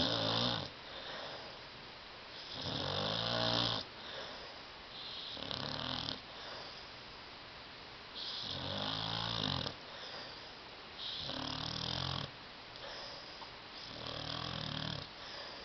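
Sleeping dog snoring loudly, a long pitched snore roughly every three seconds, with quieter breaths out between them.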